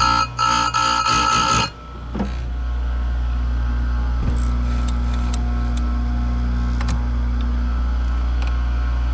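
Oregon electric bench chain grinder: the wheel grinds a chainsaw chain tooth for about a second and a half, then the motor keeps running steadily with the head lifted, with a few light clicks as the chain is moved on to the next tooth.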